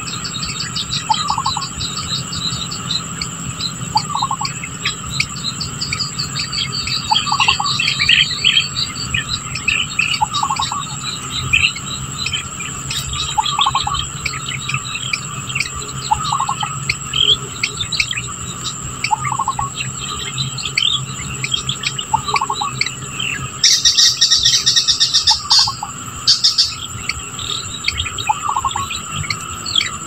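Outdoor bird-and-insect ambience: a steady high-pitched insect drone under scattered bird chirps, with a short call repeated about every three seconds. Late on comes a louder buzz lasting about two seconds.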